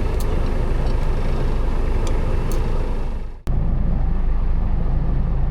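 A fishing boat's engine running steadily, with wind and water noise over it. The sound fades out for a moment about three and a half seconds in, then carries on the same.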